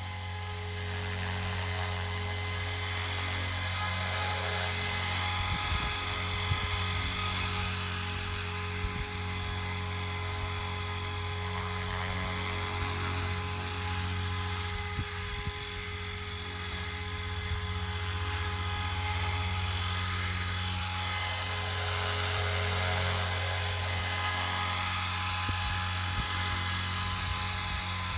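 Radio-controlled model helicopter in flight: a steady high-pitched motor whine over the low hum of the spinning rotor blades, its pitch holding nearly constant.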